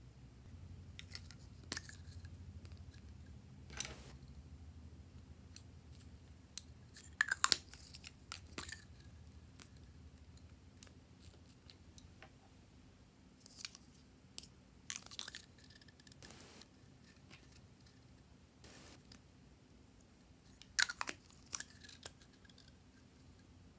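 Scattered sharp clicks and snaps of small plastic containers and add-ins being handled and opened over trays of glossy slime, a dozen or so in short clusters with quiet stretches between, the loudest about seven seconds in and again near the end.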